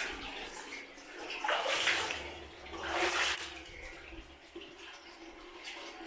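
Feet wading through shallow stream water in a cave passage, with three sloshing splashes in the first half, then a quieter wash of water.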